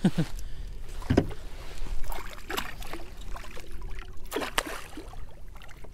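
A big northern pike thrashing at the surface beside a kayak as it is being netted: several sudden splashes and knocks, about four separate bursts, the strongest around two seconds in.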